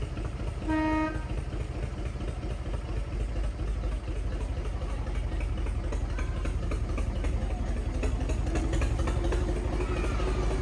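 Small narrow-gauge diesel locomotive sounding one short horn toot about a second in, then its engine running with a steady low rumble as it draws slowly closer, a whine rising slowly in pitch near the end.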